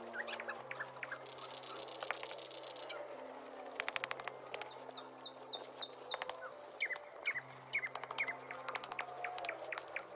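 Birds chirping in short repeated calls over soft background music with low held notes; a few quick runs of clicking about four and six seconds in.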